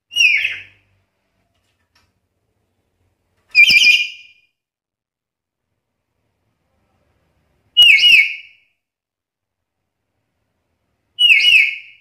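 Black-capped lory (Lorius lory) calling: four loud, high-pitched whistled calls, about one every four seconds, each a quick pair of notes lasting about half a second.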